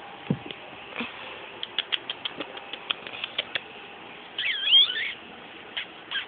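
A run of quick, sharp mouth clicks, then a brief burst of high, wavering kissy squeaks about four and a half seconds in: a person clicking and squeaking to call a pet rat. A soft low thump comes just after the start.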